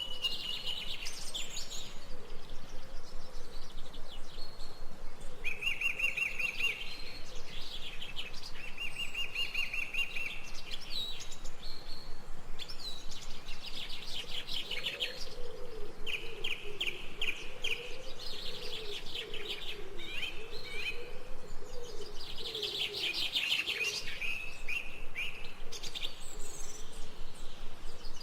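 Several birds chirping and trilling together: quick repeated notes and short rattling trills, overlapping throughout. A lower, wavering call joins in through the middle.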